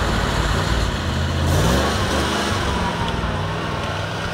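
1979 Ford F-150 pickup's engine revving up about a second and a half in, then running steadily as the truck drives off through the snow.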